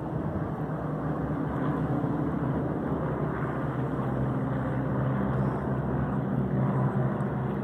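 A formation of vintage propeller aircraft passing overhead: a steady, overlapping drone of their piston engines that grows a little louder toward the end.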